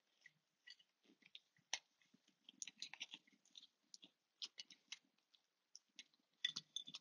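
Faint rubbing and scattered small clicks of a silicone protective support being worked onto the bottom of a glass hookah vase, with a sharper click about a second and three quarters in and a short cluster near the end.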